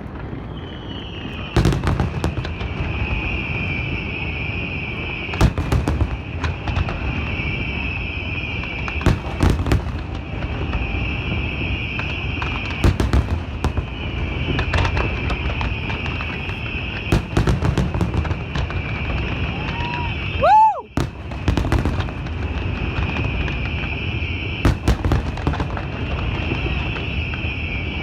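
Aerial fireworks shells bursting in an irregular series of sharp bangs, each with a low rumbling tail, over a steady high hiss.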